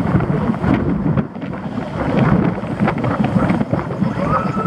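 Wind buffeting a roof-mounted camera's microphone over the road and engine noise of a moving car, with a few short knocks. A steady high tone starts near the end.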